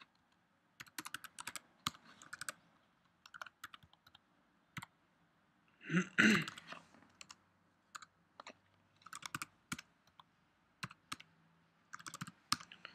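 Computer keyboard typing in short bursts of keystrokes, separated by pauses. A brief, louder non-click sound comes about six seconds in.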